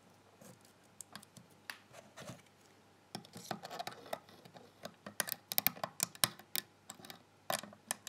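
Steel hook picks clicking and scraping in the keyway of an old ERA two-lever padlock as they are worked in to tension the bolt. Scattered light clicks, then a quicker run of clicks from about three seconds in.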